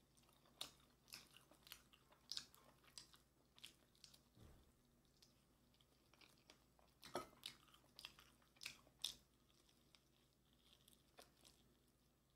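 Person chewing and crunching on yangnyeom Korean fried chicken, a run of crisp crunchy clicks and bites that comes in two busy spells, near the start and again in the middle, then thins out.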